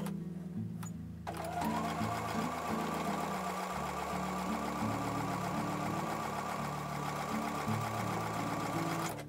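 Electric sewing machine stitching a seam through pinned pieces of quilt fabric: it speeds up about a second in, runs at a steady speed, then stops abruptly just before the end.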